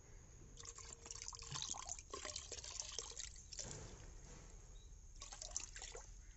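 Yeast solution poured in a thin stream from a small cup into a bucket of moina culture water, trickling and splashing in three spells with short pauses between them. This is the moina live-food culture being fed.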